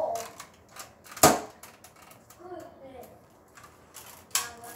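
A toy foam-dart blaster being handled and loaded, giving plastic clicks and clacks. There is one loud clack about a second in and another sharp one near the end, with a little mumbling between.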